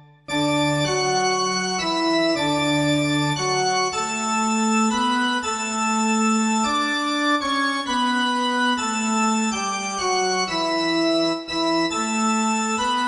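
Organ playing held chords that change every half second to a second, starting just after a brief drop-out at the very beginning.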